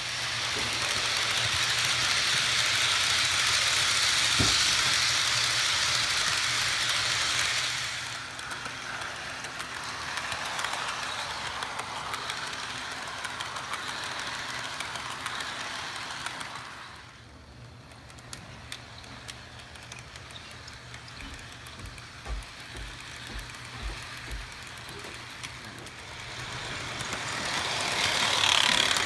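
HO scale model trains running past on the layout track: a steady rushing rattle of small wheels on rail with a low motor hum. It is loudest at first, drops off for a moment later on, and swells again near the end as cars pass close.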